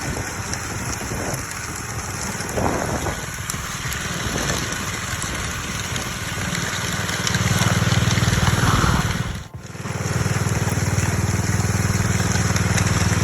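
Gas walk-behind power trowel (whirlybird) running at a steady engine speed, its combo blades sweeping a hardening concrete slab on a finishing pass. The engine gets louder about seven seconds in and cuts out for a moment near ten seconds, then resumes.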